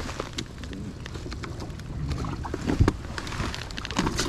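Clicks and knocks from handling on a Skeeter bass boat's deck as a latch on the gunwale is worked, with a couple of louder thumps, the loudest near the end.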